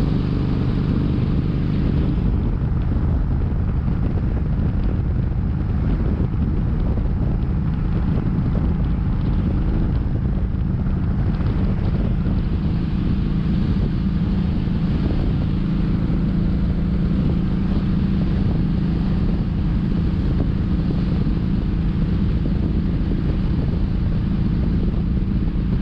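Kawasaki Vulcan 1700 Vaquero's V-twin engine running at a steady highway cruise, with wind rushing over the microphone.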